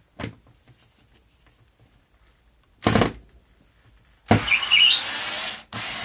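Hikoki DB3DL2 3.6 V cordless screwdriver in drill mode at high speed, driving a tight screw: a short burst about three seconds in, then two runs of about a second and a half each. A high wavering whine rides over the motor noise as the screw goes in under load.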